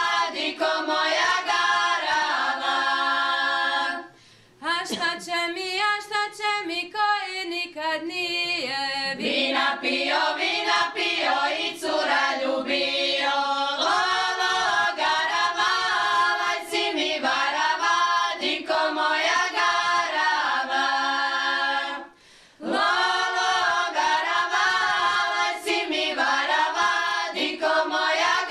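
Group of women singing a traditional Šokac folk song a cappella, with two short breaks between sung lines, about four seconds in and about twenty-two seconds in.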